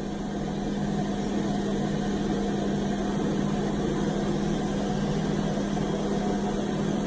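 Counter-rotating brush (CRB) carpet machine running with a steady, unchanging hum as it works the carpet pile.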